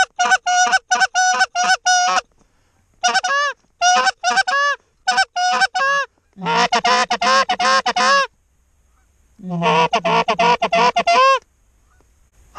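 Goose call blown in runs of Canada goose honks and clucks, four bursts with short pauses between them, the last two a fast, dense chatter; calling to a goose that is circling back toward the decoys.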